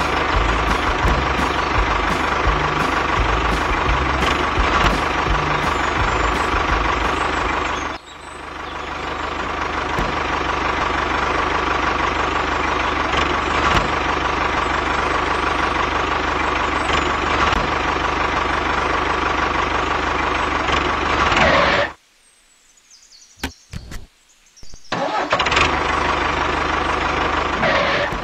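Tractor engine running steadily. It cuts off sharply about eight seconds in and comes back up within a second, then drops out for about three seconds near the end, with only a few clicks, before running again.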